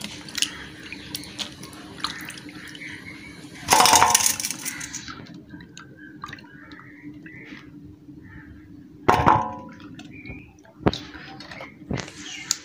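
Vegetables being washed by hand in a bowl of water: swishing and small splashes, with two louder splashes about four and nine seconds in.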